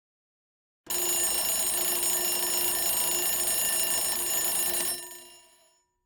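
Alarm bell ringing continuously, its clapper beating rapidly. It starts abruptly about a second in, runs steadily for about four seconds, then stops and rings away over about a second.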